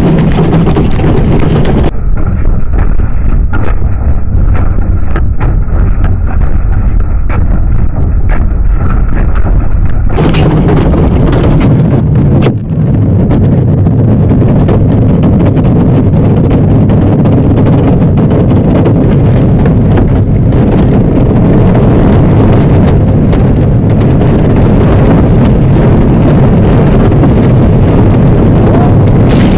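A bobsleigh running down an ice track, heard from inside the sled: a loud, steady rumble of the steel runners on the ice, with rattling and knocks of the sled body. The rumble grows louder about ten seconds in.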